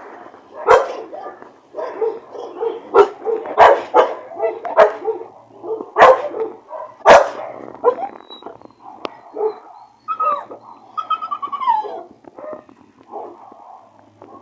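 Dog barking repeatedly, with a run of sharp, loud barks over the first half. Near the end come softer calls that fall in pitch.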